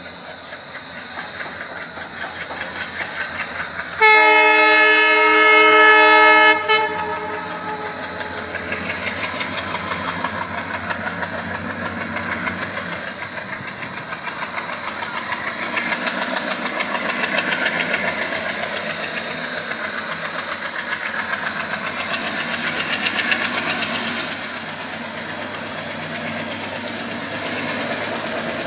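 Indian Railways ALCo WDM-class diesel locomotive blaring its horn once for about two and a half seconds, starting about four seconds in. Around the horn the engine chugs hard under load, throwing heavy black exhaust, with a rhythmic pulse and the clatter of the train. The sound grows as the train draws nearer.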